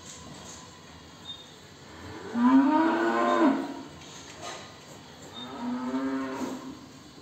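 A cow mooing twice: one long, loud moo a couple of seconds in, then a second, quieter moo near the end.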